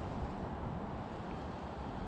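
Steady wind noise buffeting the microphone outdoors on the water, a low rumbling hiss with no distinct events.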